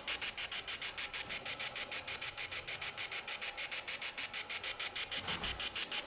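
Necrophonic ghost-box app sweeping: a steady train of short hissy chirps of static, about eight a second. A soft low bump comes about five seconds in.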